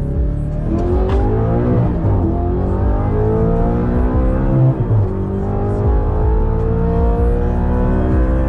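2009 Audi R8's 4.2-litre V8 accelerating hard through the gears. Its pitch climbs and drops back at upshifts about one, two and five seconds in, and each gear is held longer than the last.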